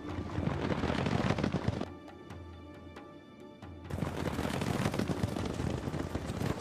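A loud, dense, rapid clatter of many quick strikes for about two seconds, dropping away to soundtrack music for about two seconds, then returning.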